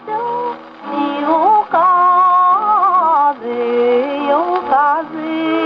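A 1930s Japanese popular song on a 78 rpm shellac record, played through a Victor Victrola acoustic gramophone: orchestra with seven-hole shakuhachi, the melody sliding between notes. The sound has no treble.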